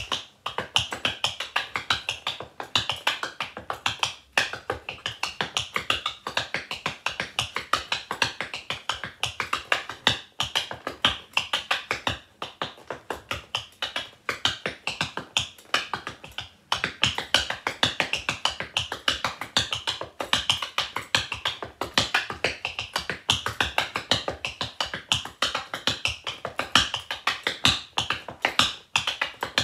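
Rhythm tap dancing: the metal taps on tap shoes striking a wooden floor in a quick, steady stream of sharp clicks, with a few short breaks.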